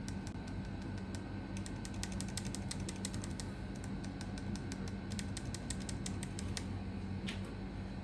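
Bare Gateron Milky Yellow linear keyboard switches in a Keychron K6, one lubed with Krytox 205G0 and one unlubed, pressed repeatedly by two fingers: quick runs of short clacks that thin out to a last couple of presses about six and a half seconds in.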